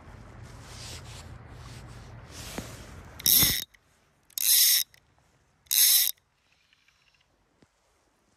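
Fly reel's click-and-pawl ratchet buzzing in three loud half-second bursts, about a second apart, as line is pulled off the reel by hand. Before them, a low steady rush.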